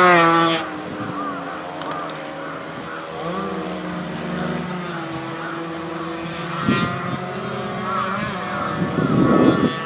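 Several racing motorcycle engines revving and shifting through the gears, their pitch repeatedly climbing and dropping. One bike is loudest right at the start with a rising pitch, and there is another loud surge near the end.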